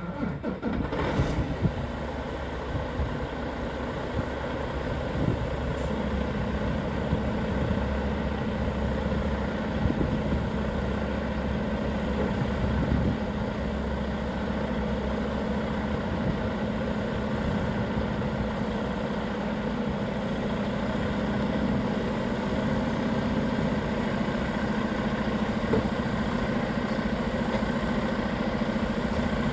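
Freightliner Argosy prime mover's diesel engine catching right at the start, then idling steadily.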